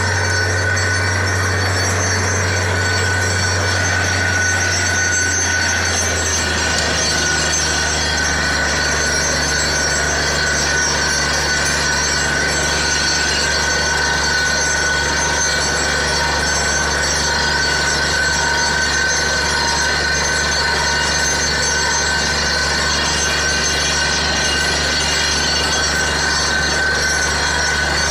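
Borewell machinery running with a steady, loud mechanical drone: a deep hum under a constant high whine. The hum drops to a lower pitch about six seconds in and then holds steady.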